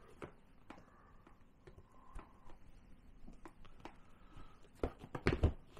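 Handling noise from a USB borescope cable being plugged into a port on a rugged tablet scan tool: scattered faint plastic clicks and cable rustle, with a few louder clicks about five seconds in.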